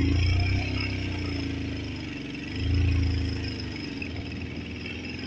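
Vehicle engine running on the move, its pitch rising and falling as it revs, loudest near the start and again about three seconds in.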